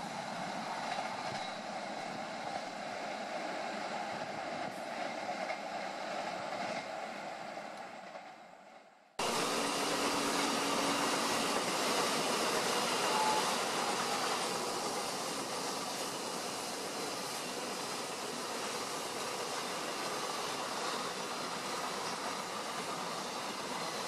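A train rolling away fades out over the first nine seconds, then a sudden cut brings in the steady, louder noise of a container freight train's wagons passing close at speed.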